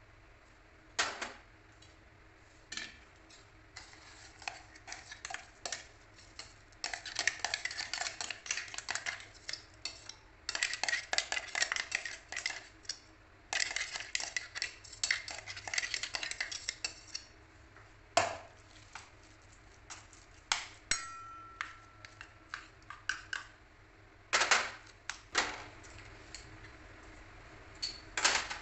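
Metal spoon scraping and knocking against a stainless-steel mixer-grinder jar and mixing bowl as thick paste is scraped out: long runs of rapid scraping clicks with a few sharper single knocks. About two-thirds of the way through, a brief ringing tone like struck steel.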